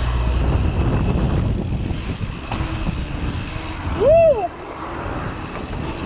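Wind rumbling on the microphone and mountain-bike tyres rolling over paving stones. About four seconds in, a loud, short tone rises and falls in pitch.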